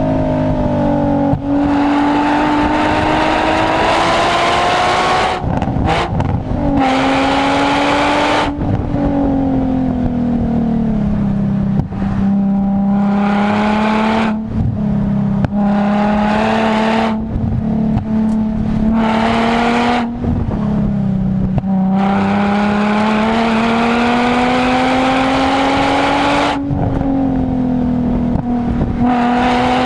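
Nissan 350Z's 3.5-litre V6 exhaust, stock apart from an aftermarket air filter and a handmade Y-back, pulling hard up a hill road. Its note climbs steadily in each gear, then drops away briefly every few seconds at gear changes and throttle lifts.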